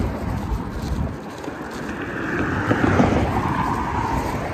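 A car passes by on the road, growing louder to a peak about three seconds in and then fading, its pitch dropping as it goes by. Wind buffets the microphone throughout.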